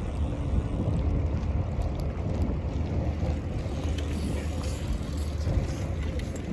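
Wind rumbling steadily across the microphone of a moving bicycle.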